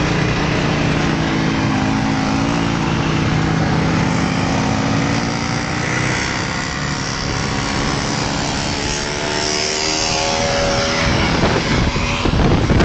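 Small motorcycle engines running at speed, their pitch sagging and then climbing. Wind buffets the microphone near the end.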